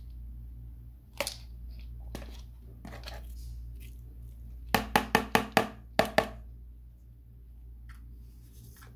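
A spoon knocked against a plastic mixing bowl: one sharp knock about a second in, then a quick run of about seven knocks near the middle, over a steady low hum.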